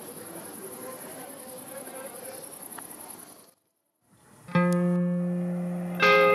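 Steady high-pitched insect trill, such as crickets, over soft outdoor noise, cutting off a little past three seconds in. After a brief silence, music with plucked guitar notes starts loudly.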